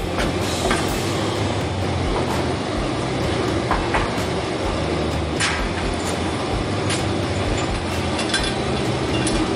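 A steady mechanical hum and hiss, with a few light clinks of metal parts being handled.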